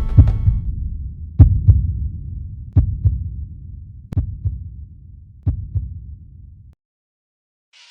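Heartbeat sound effect in an intro soundtrack: four double thumps about a second and a half apart over a low rumble, growing fainter, then cutting off suddenly a little before the end.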